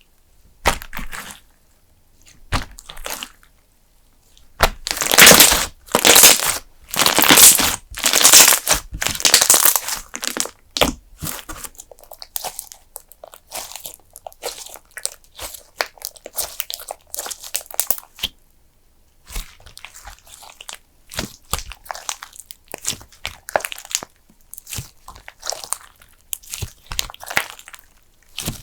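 Thick custard-base slime being squeezed and pressed by hand, giving crunchy crackles and pops. A few long, loud crackling squeezes come first, then a run of short, quick crackles and pops.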